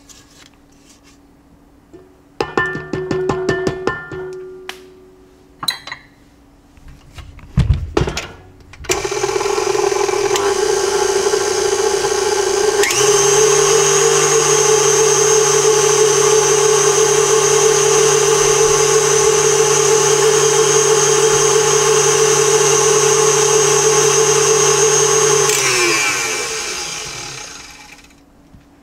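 Stand mixer's motor whirring steadily as its wire whisk beats cream-cheese filling. It starts about a third of the way in, steps up to a higher speed a few seconds later, and winds down to a stop near the end. Before it starts there is a quick run of clicks and a low thump.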